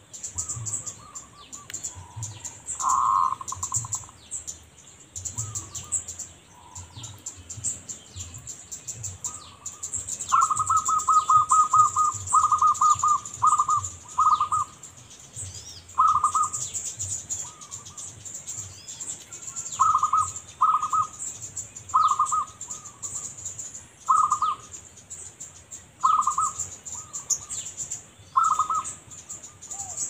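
Zebra dove cooing in short repeated notes: a quick run of them, then single notes every couple of seconds. Underneath is a steady high-pitched insect buzz with small birds chirping.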